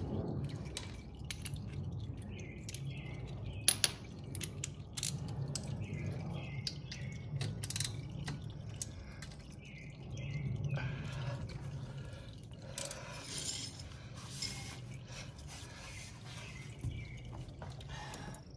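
Scattered sharp clicks and light metallic taps from a socket and extension working a bolt on the hydraulic filter housing under a John Deere 2025R compact tractor, over a low steady hum.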